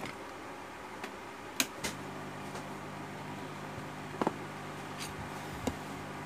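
Sharp clicks and taps of tools being picked up and set down on a workbench, the loudest about a second and a half, four, and five and a half seconds in. A steady low hum starts about two seconds in.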